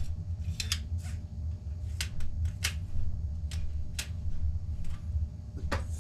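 Scattered short clicks and ticks from handling a telescopic fishing rod and its reel, about eight at irregular intervals, over a steady low hum.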